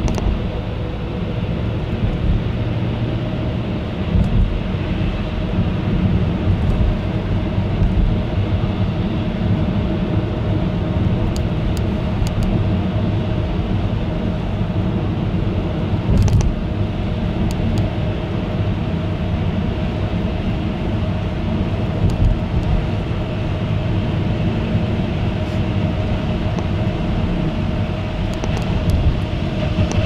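Car driving, heard from inside the cabin: steady road and engine noise with a constant hum, and a few brief knocks along the way.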